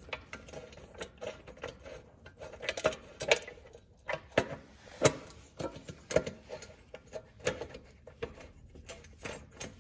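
Irregular clicks and light knocks of hands handling parts and wiring in a motorcycle's side compartment, with the sharpest knock about five seconds in.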